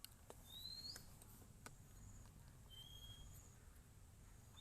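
Near silence with faint bird calls: a short rising whistled note about a second in and a short level note near the end, over a few faint clicks.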